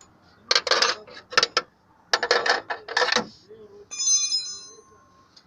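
Metal parts and tools clattering and clinking in quick clusters, then one ringing metallic clang that dies away over about a second.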